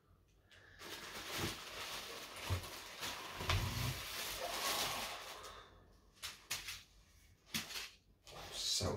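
Plastic packaging and bubble wrap crinkling and rustling for about five seconds as it is pulled out of a cardboard box, then a few short rustles and knocks as a guitar in a plastic bag is lifted out.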